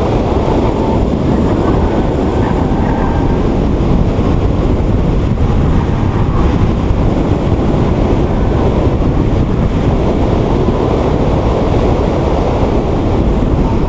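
Heavy, steady wind rumble on the microphone of a camera on a Subaru BRZ being driven at speed, with the car's driving noise underneath.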